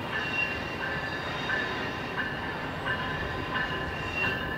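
VIA Rail Siemens Venture passenger train approaching led by its cab car, a steady rumble of the train on the rails. Over it a bell rings in a steady repeat, about three strokes every two seconds.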